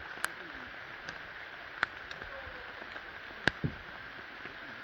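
Quiet outdoor forest ambience: a steady hiss broken by a few sharp clicks or taps, the loudest about three and a half seconds in.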